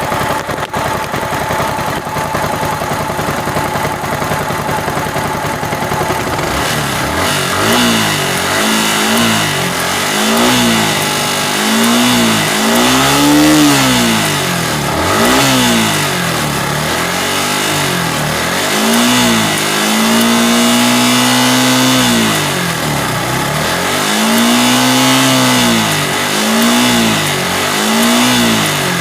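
Yamaha R15 V3's 155 cc single-cylinder engine with variable valve actuation, freshly rebuilt with new rocker arms and camshaft. It idles for about six seconds, then is revved again and again with quick throttle blips, two of them held for a couple of seconds each.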